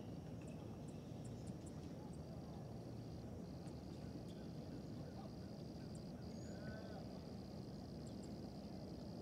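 A steady high-pitched insect trill that breaks off briefly a few times, sparse short bird chirps, and a short bird call about seven seconds in, over a low rumble.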